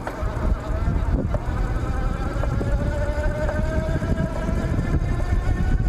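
A 48V 1000W mid-drive electric bike motor whining under throttle as the bike accelerates, its pitch rising slightly. Heavy wind rumble on the microphone runs underneath.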